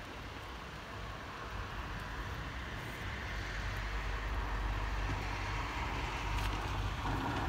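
Low rumble of an approaching vehicle, growing steadily louder.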